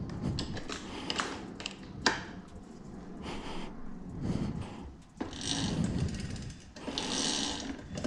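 Workshop handling noise of hand tools and metal bike parts: scattered clicks and knocks, then two short stretches of rattling in the second half.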